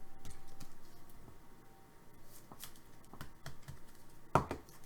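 Trading cards being handled and sorted: faint rustling and light ticks, with one sharper click about four and a half seconds in.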